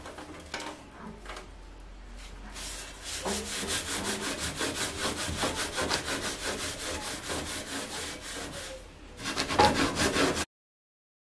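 A sponge scrubbing baking soda over a greasy stainless-steel stovetop in quick, rhythmic back-and-forth strokes. A louder flurry of strokes comes near the end, then the sound cuts off suddenly.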